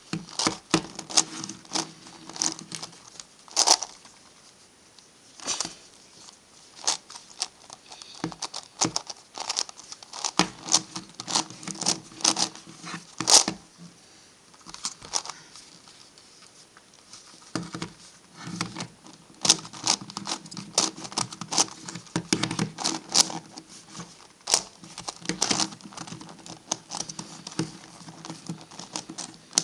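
MF8 Gigaminx puzzle being turned by hand: runs of rapid plastic clicks and clacks as its layers are twisted, with brief sparser pauses between runs.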